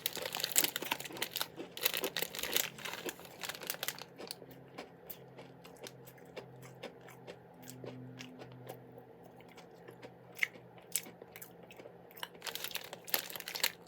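Crunchy chewing of a shortbread finger close to the microphone: irregular crisp crunches, thinning out in the middle and picking up again near the end.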